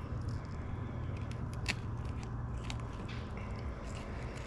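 Hand fillet knife cutting a fillet from a black crappie, with a few small crackling, crunching clicks as the blade works through skin and along the bones.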